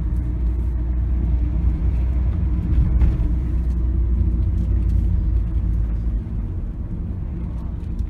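Steady low rumble of road and engine noise heard inside a moving car's cabin, easing slightly about six seconds in.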